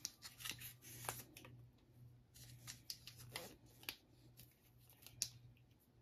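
Faint, scattered clicks and taps with a short squeaky scrape about three and a half seconds in, over a low steady hum: the handling noise of small hard parts and tools during plumbing work.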